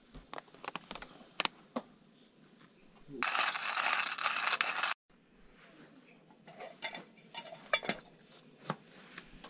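Scattered small clicks, taps and clinks of camp cookware and utensils being handled, with a steady hiss for about two seconds around the middle that cuts off suddenly.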